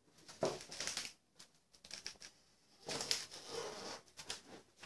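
Faint rustling and handling noise in two stretches, about half a second in and again from about three seconds in until near the end.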